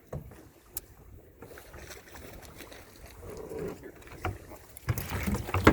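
A few scattered knocks on a boat, then louder knocking and rustling near the end with one sharp knock.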